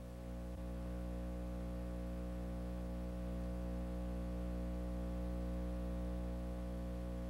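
Steady low hum made of a stack of overtones, holding the same pitch without change throughout.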